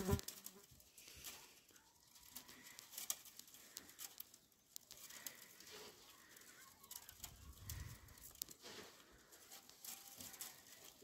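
Faint irregular rustling and clicking of thin bamboo strips scraping and tapping against each other as a basket is woven by hand.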